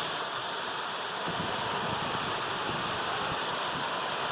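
Waterfall's steady rushing: a constant hiss of falling water with no breaks.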